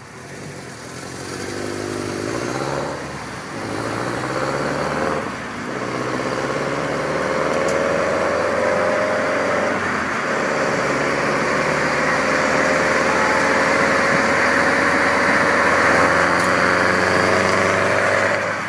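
Exhaust of a Subaru GC8 Impreza with a 22B engine swap, its flat-four heard from a car driving alongside. The note climbs steadily as it accelerates and drops back at a gear change about ten seconds in before climbing again, over road and wind noise.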